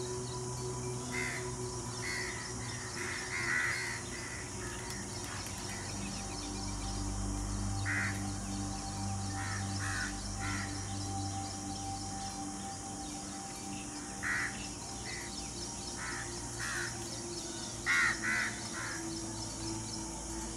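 Short, sharp animal calls, some single and some in quick clusters, the loudest pair near the end, over a steady background music drone.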